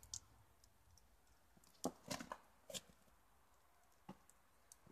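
A few faint, sharp clicks and crunches over near silence, with a quick cluster about two seconds in.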